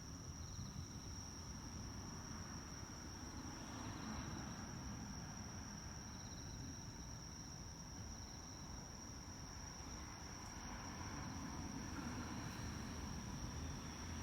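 Night insects singing: a steady high-pitched trill throughout, with short pulsed chirps every couple of seconds, over a low rumble of distant traffic.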